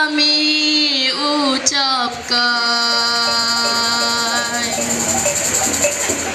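A child singing long, steady held notes into a microphone, amplified, with short slides in pitch between the notes. The longest note is held about two and a half seconds and then fades.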